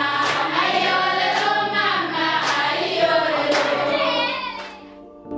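A group of voices singing together, accompanied by steady hand clapping about once a second. The singing fades out just before the end, giving way to soft instrumental music.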